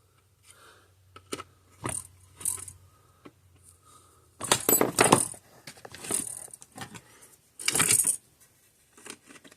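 Small metal hardware and hand tools clinking and rattling in scattered clicks, with two louder jangling bursts, one about four and a half seconds in and one near eight seconds.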